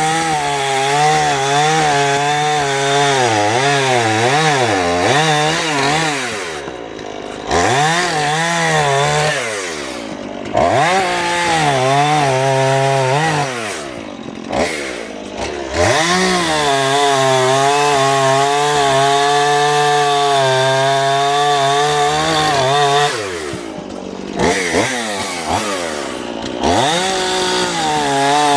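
Dnipro 42 two-stroke chainsaw cutting poplar with a dull chain: the engine runs at high revs, its pitch sagging and wavering as the bar bites. It drops back toward idle several times and revs up again.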